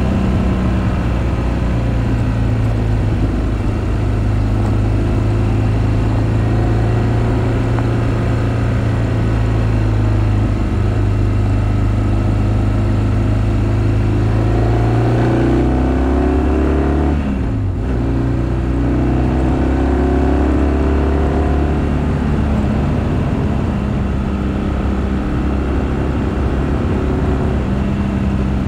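BMW R1200GS flat-twin boxer engine running while riding. About fifteen seconds in, the revs climb, then break off and drop sharply at a gear change, and the engine pulls again.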